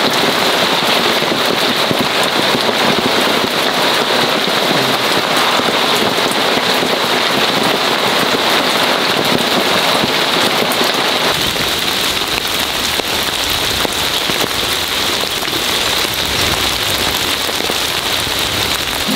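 Heavy rain falling steadily. About eleven seconds in, the sound shifts and gains a deeper low rumble.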